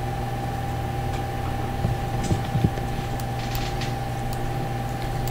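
Steady low hum and hiss with a faint constant higher tone, room or equipment background noise. A few faint short clicks and sounds come in the middle.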